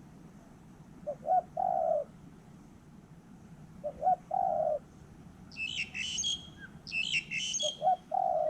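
Spotted dove cooing: three phrases, each two short notes and a longer held coo, about three seconds apart. Between the second and third phrases a small bird chirps in two quick twittering bursts.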